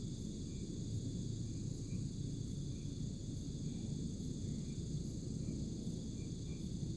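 Steady chorus of night insects: several continuous high-pitched trills at once, with faint chirps repeating, over a low steady rumble.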